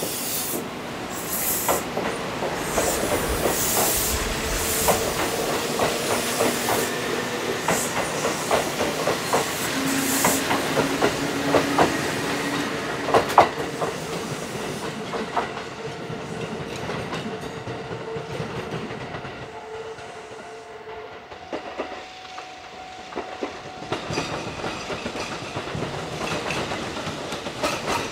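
Kintetsu electric train running over the rails, its wheels clicking over rail joints and points in an irregular series, loudest in the first half and easing after about fifteen seconds.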